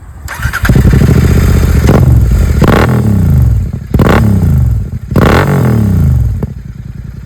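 Royal Enfield Continental GT 650's parallel-twin engine revved through Red Rooster slip-on exhausts. There is a held rev, then three quick blips that each fall away, and it settles back to idle near the end.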